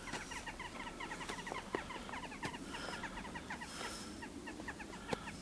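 Birds calling faintly: a dense run of short, quick chirps, with a few brief higher whistles and the odd soft click.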